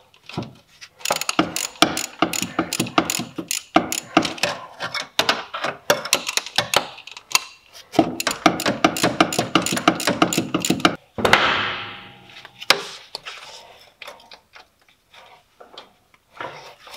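Ratchet wrench clicking rapidly as it is worked back and forth on a stiff 13 mm tensioner bolt. About eleven seconds in comes a brief louder rasp, then a few scattered clicks.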